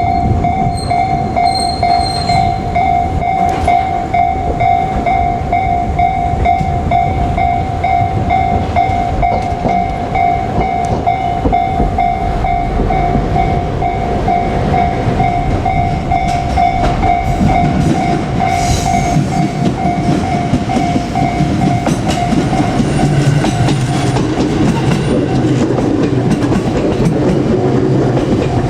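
Japanese level-crossing warning bell ringing in a steady, evenly pulsing rhythm. From about two-thirds of the way through, an electric train's rumble and wheel clatter swell as the train comes through the crossing.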